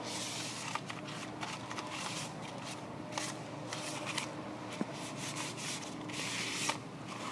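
Sandpaper being rubbed by hand over the metal leg of an electric stacker, in repeated irregular strokes, to prepare the surface for painting.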